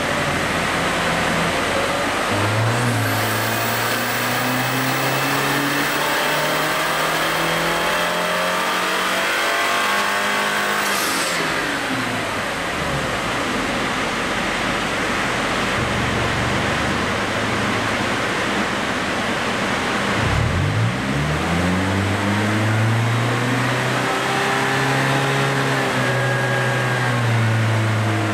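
Lexus IS200t's turbocharged four-cylinder engine, breathing through an aftermarket catback exhaust, being run under load on a chassis dyno. The revs climb steadily for about ten seconds, drop away sharply, then climb again in the second half.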